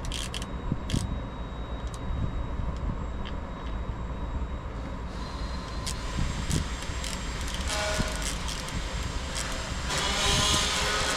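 Scattered clicks and light knocks from hands working on parts, over a steady low rumble. A louder hiss comes in near the end.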